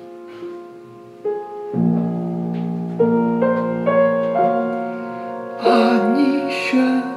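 Piano playing a slow accompaniment, single notes and chords entering one after another and held, with a man's voice singing a phrase near the end.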